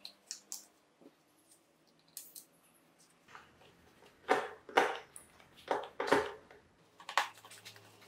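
Small clicks and rustles of gloved hands handling wires with crimped lugs while connecting them to push-button and indicator terminals on a control panel door. Several louder scraping, rustling handling noises come about halfway through.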